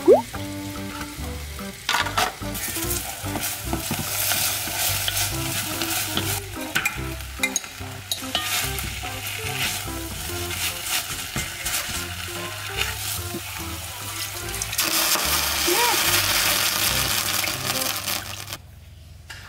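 Seasoned dried radish greens (siraegi) sizzling as they are stir-fried with a wooden spoon in an enamelled cast-iron pot, the spoon scraping through them. Near the end the sizzle swells louder as broth is poured in, then drops away suddenly.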